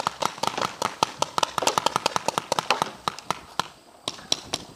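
Several paintball markers firing rapid cracking shots at once as the game opens, a dense overlapping volley for about three seconds that then thins to scattered single shots.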